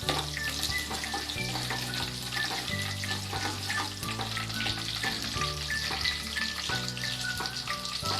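Chopped garlic sizzling and crackling in hot cooking oil in a pan, frying until golden brown. Soft background music with low held notes runs underneath.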